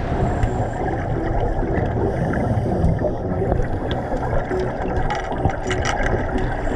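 Underwater recording of scuba divers changing sidemount cylinders: a steady rumble of regulator breathing and exhaled bubbles, with small clicks and knocks of clips and gear that grow thicker about five seconds in.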